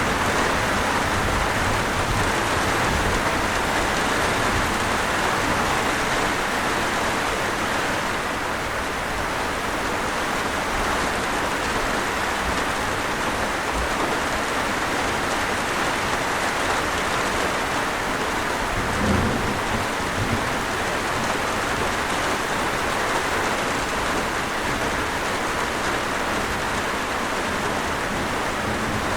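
Steady rain falling, a dense, even hiss. A brief low thump about two-thirds of the way through.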